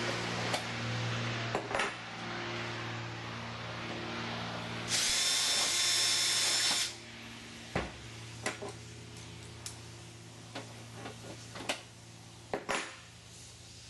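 Cordless drill running for about two seconds with a high, steady whine, drilling out a rivet hole through the aluminium stabilizer skin and rib flange. Afterwards come a string of short light clicks and taps of small metal parts being handled.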